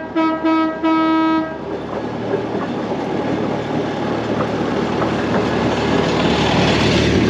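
Vintage rail speeder sounding its steady-pitched horn in three short toots, then rolling toward and over on the rails. The noise of its running gear and steel wheels grows louder until it passes overhead near the end.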